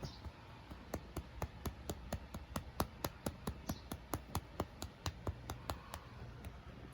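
A quick, even run of sharp, light clicks, about four to five a second, starting about a second in and dying away near the end.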